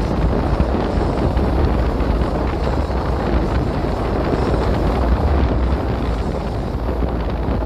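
Heavy storm wind buffeting the microphone in a steady low rumble, over the continuous noise of a motorboat running through rough, wave-tossed water.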